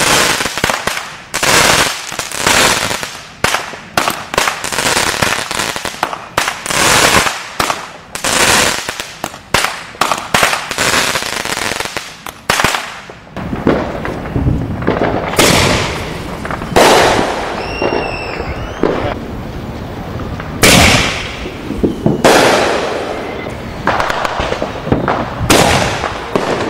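Consumer fireworks going off: a quick, irregular string of bangs for about the first half, then fewer, louder single bangs, with a short whistle about two-thirds of the way through.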